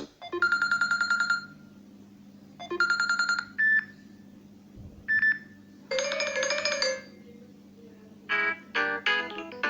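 Samsung Galaxy J5 (2017) ringtones playing one after another: a fast trilling tone pattern twice, two short single beeps, a buzzy tone about six seconds in, and a quick run of notes near the end. A steady low hum runs underneath.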